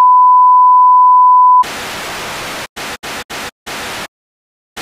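Loud steady single-pitch beep of an emergency broadcast alert tone, cutting off about a second and a half in. TV static hiss takes over, stutters out four times briefly and stops just before the end.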